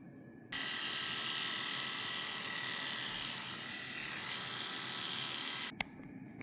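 Electric pet hair clippers running with a steady high whine. They start abruptly about half a second in and cut off with a click near the end.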